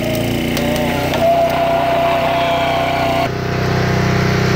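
Small petrol engine of a log splitter running steadily. A high, steady whine comes in about a second in and cuts off suddenly about three seconds in, while the engine runs on.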